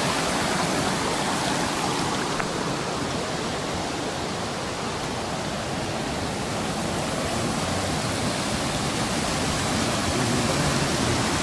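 Small waterfall, water rushing and splashing steadily.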